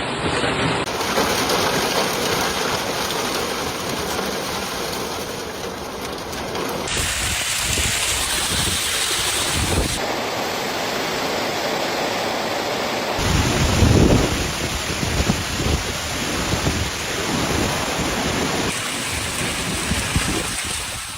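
Heavy storm rain pelting down, over several clips cut one after another. Around the middle there is a louder, uneven low rumble.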